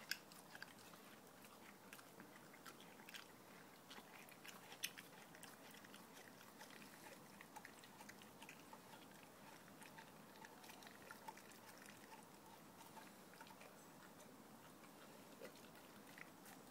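A dog chewing and biting at a large raw bone-in steak: faint, irregular clicks and crunches, more frequent in the first few seconds.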